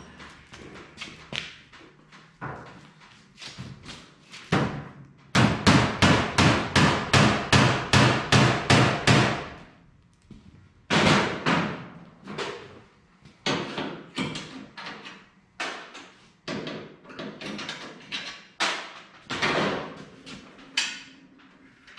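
Sharp knocks on a race car's body panel as it is fitted: a fast, even run of about four strikes a second for some four seconds, then slower single knocks now and then.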